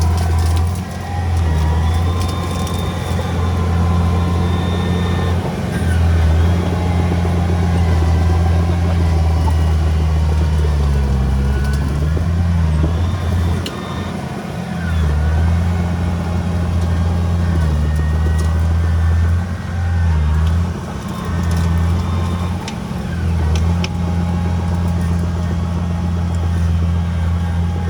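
Heavy diesel engine of earth-moving equipment running steadily, its pitch and level dipping briefly and coming back several times.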